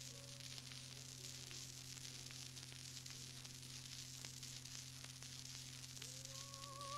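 Hiss and crackle of a 1930s radio broadcast recording, with a steady low hum and scattered clicks. About six seconds in, music begins with a held note wavering in vibrato.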